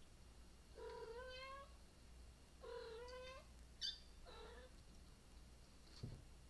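Domestic cat meowing three times, each call short and rising slightly in pitch. A brief high click comes just before the third call, and a soft thump near the end.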